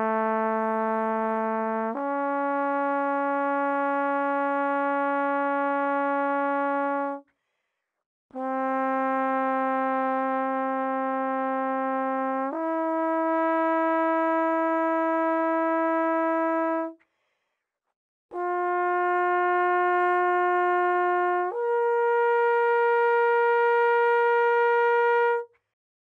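Recorded trombone long tones played back: three phrases of two held notes each, the second note of each pair a step higher, with short pauses between the phrases.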